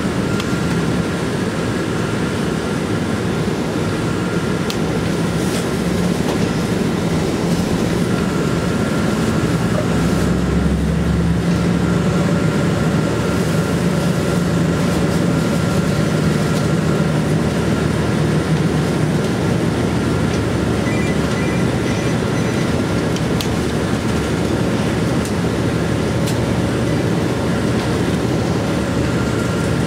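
Steady engine hum and road noise of a city bus heard from inside the cabin while it drives. The engine note strengthens and shifts about ten seconds in as the bus picks up speed.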